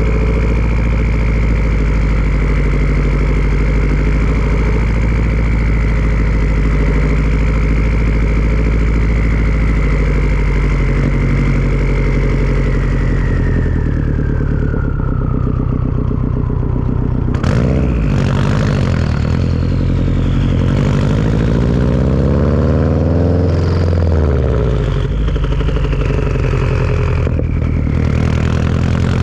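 Turbocharged Subaru flat-four running through a Tomei turbo-back exhaust with a steady high turbo whistle. The whistle falls in pitch as the revs drop, starting a little under halfway in. About two-thirds of the way through comes a sudden sharp sound, after which the engine note and whistle rise and fall again.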